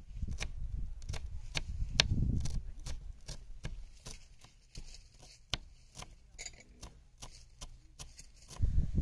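Kitchen knife finely chopping green garlic on a bamboo cutting board: quick, irregular taps of the blade against the wood, a few a second.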